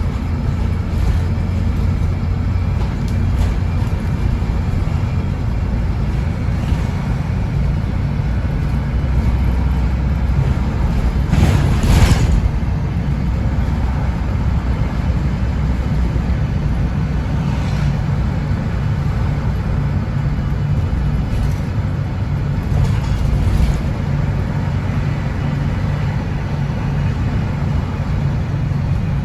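MAN 18.240 bus's six-cylinder diesel engine running under way, heard on board as a steady low drone whose strength shifts as the bus drives. A brief loud noise about twelve seconds in.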